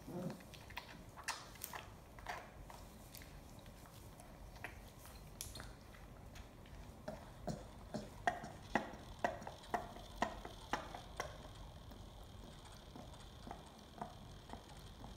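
Lion cub sucking on a milk bottle's teat: faint short clicks, scattered at first, then a regular run of about two a second through the middle.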